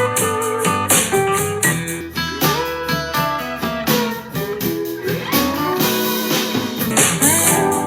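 Blues guitar music played back through a small budget portable Bluetooth speaker as a sound test. The tone of the playback changes about two seconds in and again near the end.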